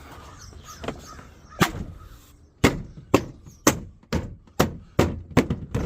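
Hand smacking the plastic interior door panel of a 2000 Ford F-250 to snap its retaining clips into the door: a series of sharp slaps, one alone and then about eight in a row, roughly two a second, from about two and a half seconds in.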